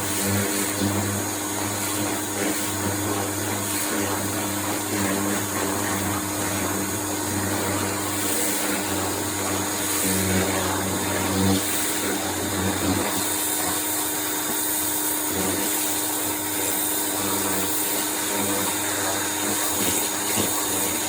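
Pressure washer running steadily, its motor and pump humming while the jet of water hisses against a lawnmower being cleaned.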